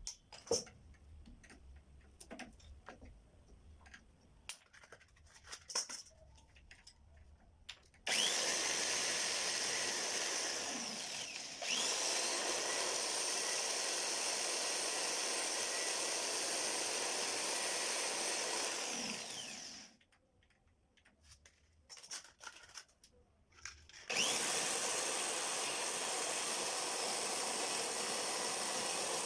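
A handheld power tool runs in three long spells, each starting with a quick rising spin-up, with scattered light clicks and taps in the pauses between.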